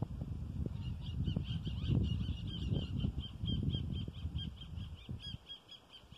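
White-throated seedeaters at their nest chirping in a rapid, even series of short high notes, about five or six a second, starting about a second in and stopping near the end, over a louder low rumble.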